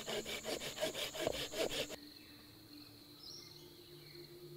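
Rapid rhythmic rasping strokes, about seven a second, lasting about two seconds before stopping abruptly. Insects buzz faintly behind it.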